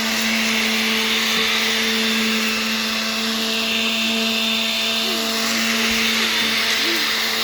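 Electric power sander running steadily on wood: a constant motor hum under a loud sanding hiss.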